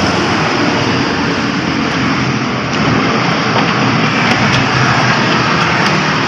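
An engine running steadily at an even speed, a constant mechanical drone with no change in pitch.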